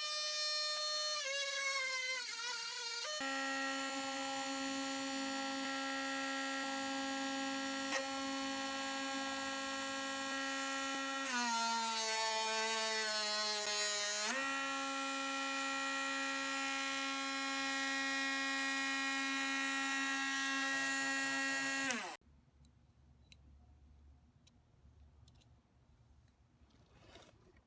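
Small electric grinder motor running with a high, steady whine while a rotary engine side seal is ground down to clearance. Its pitch sags for about three seconds midway, and about 22 seconds in it switches off and winds down, leaving faint clicks.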